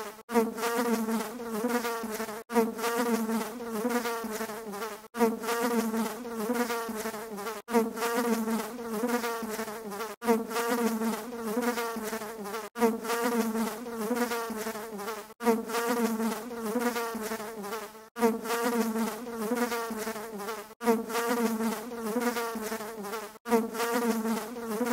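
A buzzing drone with a wavering pitch, like a flying insect's, played as a loop: the same stretch of about two and a half seconds repeats over and over, with a brief break between repeats.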